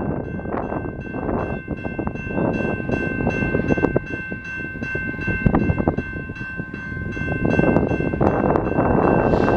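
Railway level-crossing warning bell ringing in steady, evenly repeated strikes while the crossing gates are lowered, with wind buffeting the microphone.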